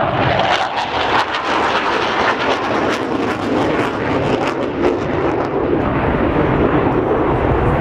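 Two RAF Tornado GR4 jets flying low over the airfield, their engines making a loud, steady jet noise with irregular sharp crackles in the first few seconds.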